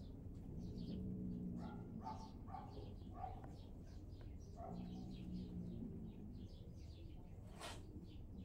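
Faint, short, high-pitched animal calls repeating every fraction of a second over a low hum, with one sharp click near the end.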